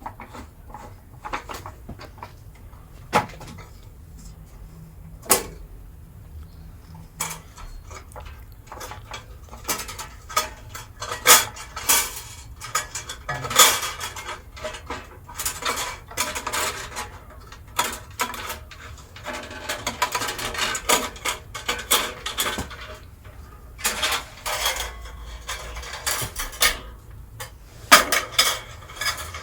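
Metallic clinks, taps and rattles of a bandsaw blade being worked off its slackened wheels and out through the guides. A few isolated knocks at first, then a busier run of clattering from about ten seconds in.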